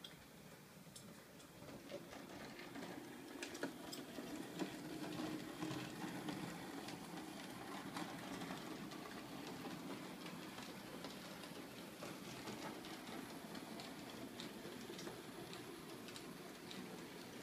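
Model steam locomotive and passenger coaches running on a model railway: a faint steady motor hum and wheel rumble with light clicks over the rail joints, growing louder about two seconds in.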